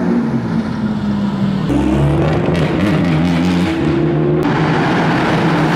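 Hyundai TCR race car engines running in the pit lane at the start of practice, revving at changing pitch as the cars pull out. The sound changes abruptly twice, about two seconds in and again about four seconds in.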